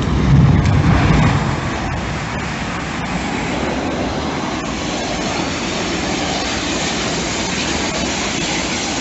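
Low rumble of an explosion, loudest in the first second or so, giving way to a steady roar of noise with a few faint clicks.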